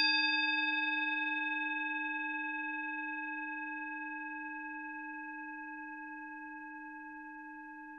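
A single struck bell-like tone: a low note with several higher overtones, ringing on and fading slowly, its highest overtones dying away within the first couple of seconds.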